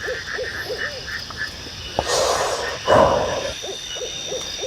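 Unidentified animals calling in a forest at night: a run of short calls, about three a second, each rising and falling in pitch, with higher chirping calls and a steady high insect-like buzz behind. About two seconds in comes a click, then a loud rustling noise for about a second and a half.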